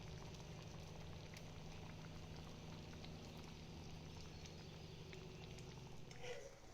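A pot of thick lentil dal simmering and bubbling, with scattered small pops over a steady low hum, and a slightly louder brief sound near the end.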